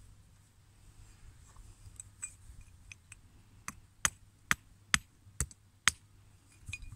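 Hammer striking the rusty steel parts of a blacksmith's leg vice to knock a piece loose: six sharp metallic blows about two a second in the second half, after a few faint clicks.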